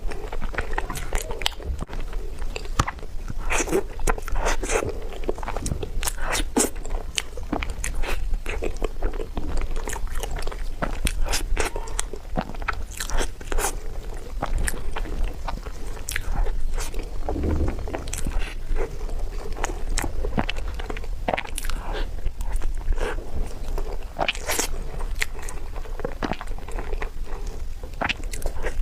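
Close-miked eating of a tiger skin dessert: steady biting and chewing with many short, sharp mouth clicks throughout.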